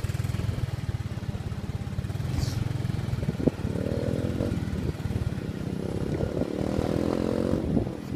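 Motorcycle engine running while riding, a fast, steady low rumble. A higher engine note joins about three and a half seconds in, and again from about five and a half seconds to near the end.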